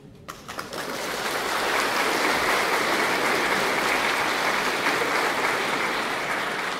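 Audience applauding: a few scattered claps grow into full, steady applause within about a second.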